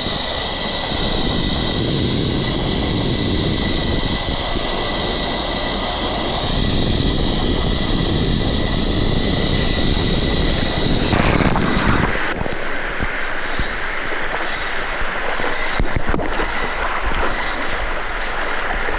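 Zipline trolley running fast along the steel cable: a steady whirring hiss with a thin high whine and wind on the microphone. It cuts off abruptly about eleven seconds in, leaving softer rushing noise with a few knocks.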